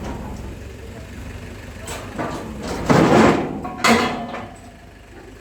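Heavy diesel engine idling with a steady rumble. Two loud, short, noisy bursts break in about three and four seconds in, the second starting sharply.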